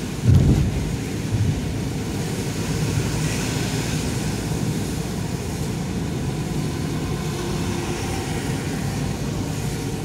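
Steady in-cabin road noise from a car driving on a wet road: low rumble with a tyre hiss on the wet surface. A single low thump stands out about half a second in.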